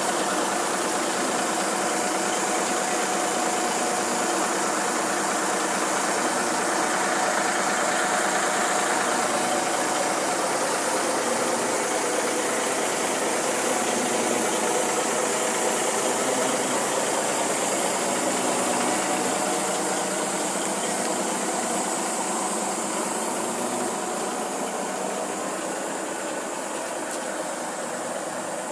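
Caterpillar diesel engine of a Ford LTL truck idling steadily with a clattering knock, easing slightly in level over the last several seconds.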